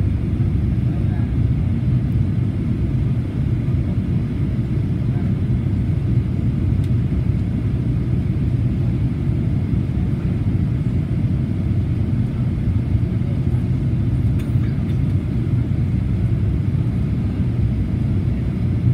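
Steady low rumble of engine and airflow noise inside the cabin of a Boeing 737-800 on approach to land, heard from a window seat beside its CFM56-7B engine.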